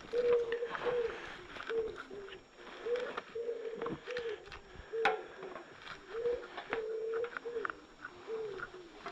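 A pigeon cooing over and over, a low repeated phrase of notes that hold and then drop in pitch, with a few short clicks and rubs mixed in.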